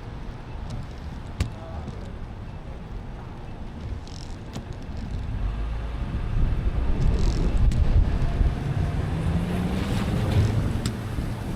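Car driving in the rain: a steady rumble of tyres on wet road that grows louder about halfway through. A low engine tone rises in pitch near the end, and there are a few sharp clicks.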